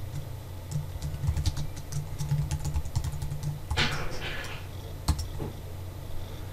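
Computer keyboard being typed on: a quick run of key clicks for about three seconds as a command is entered, then a brief hiss about four seconds in and a single sharper click about five seconds in, over a faint steady low hum.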